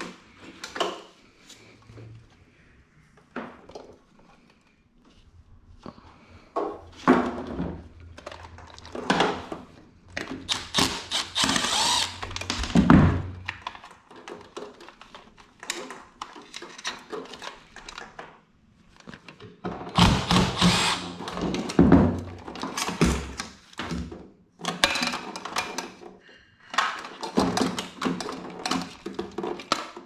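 Parts being stripped out of a PTAC air conditioner's sheet-metal control box: repeated knocks, thunks and clatter of metal, wiring and components being pulled and handled. A cordless drill-driver runs in short spells between them.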